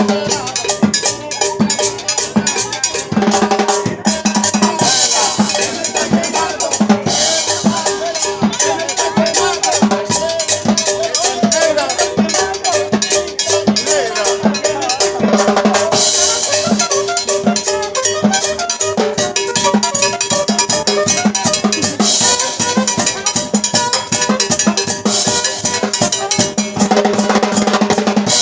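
Dance band music played live, with a cowbell and drums keeping a steady beat under a sustained melody.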